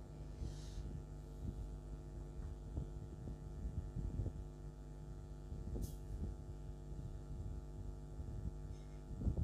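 Steady electrical mains hum, with faint scratches and light knocks from a small hand tool scraping the coating off a ground trace on an LED TV circuit board.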